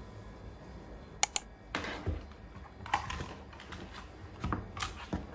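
Desk items being picked up and set down while the desk is cleared. Two sharp clicks come about a second in, followed by a run of light knocks, clatters and rustles.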